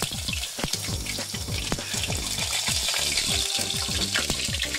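Battered sago worms deep-frying as tempura in a small pot of hot oil: a steady sizzle with frequent crackling pops.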